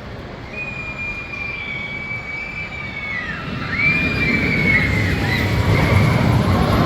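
Roller coaster train running on its track, its rumble growing louder about four seconds in, with two long high-pitched squeals above it, each falling away at its end.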